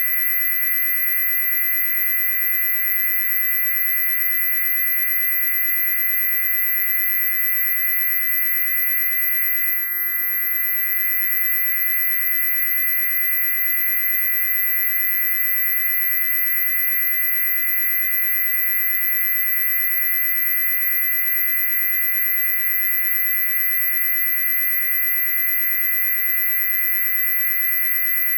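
A loud, steady, very high-pitched electronic tone that never changes pitch, layered over a cluster of fainter steady tones lower down.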